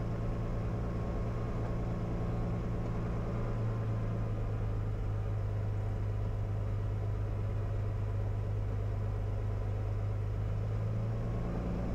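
Cirrus SR22's six-cylinder piston engine and propeller running steadily at low taxi power, heard from inside the cockpit as an even low hum.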